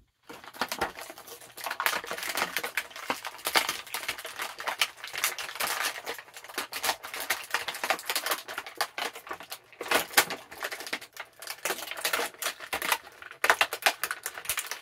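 Stiff plastic action-figure packaging being worked open by hand: a dense run of crinkling, clicking and crackling with no pause.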